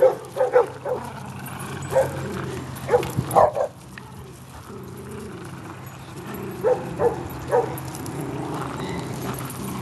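Small dogs barking and yipping in short clusters during a rope-toy tug-of-war: several quick barks at the start, more around two to three and a half seconds in, and three more near seven seconds.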